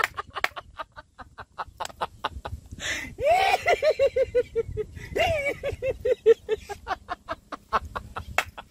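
A man laughing hard in high, rapid 'ha-ha-ha' bursts, about six a second. A fresh bout starts with a rising whoop a little after three seconds in and again about five seconds in, and each one trails off.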